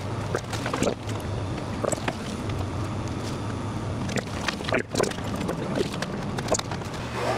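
A steady low rumble with scattered knocks and clatters on top, stopping shortly before the end.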